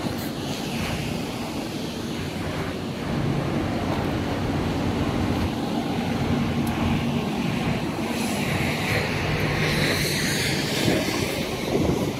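Caterpillar 950H wheel loader's diesel engine running steadily, getting louder about three seconds in, with a brief hiss near the end.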